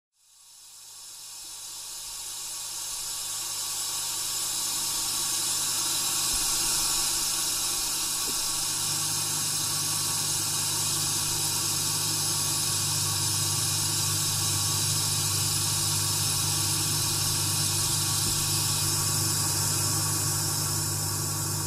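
A steady hissing noise with a low hum beneath it, fading in over the first few seconds. The hum grows louder about nine seconds in.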